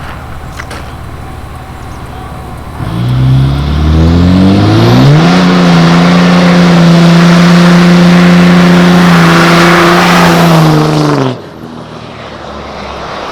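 The 2005 Dodge Ram's turbocharged 5.9 Cummins diesel, with a 6-inch exhaust, revs up about three seconds in, with a high whistle rising as it spools. It holds at steady high revs for about six seconds under a strong hiss as the tires spin in a burnout, then abruptly drops off throttle near the end.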